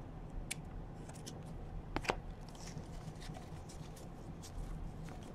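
Football trading cards being slid and flipped through by hand: faint soft flicks and clicks of card against card, with two sharper clicks about two seconds in.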